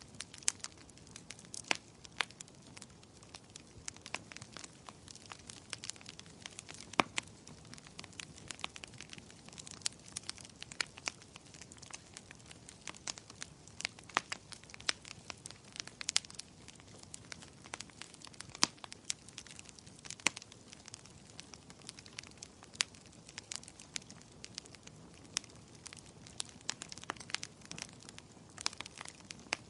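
Firewood burning in a fireplace: irregular sharp crackles and pops, several a second, over a low steady hiss of the flames.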